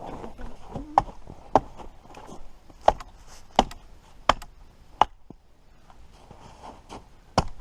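Chopping into the trunk of a small tree with a blade: about seven sharp, separate strikes at an uneven pace, with a longer gap between the last two.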